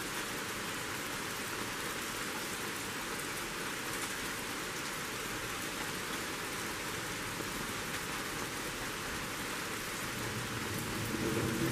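Steady rain falling on leafy trees, with a low rumble of thunder starting to build about a second before the end.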